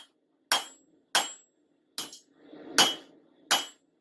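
Hand hammer striking a hot railroad spike on an anvil in steady forging blows, about six strikes roughly two-thirds of a second apart, each with a short metallic ring.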